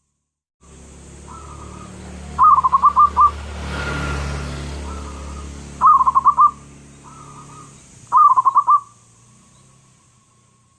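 Zebra dove (perkutut) cooing: three phrases of rapid, stuttering coos, each a quick run of about five notes, with softer drawn-out coos between them. A steady low hum runs in the background.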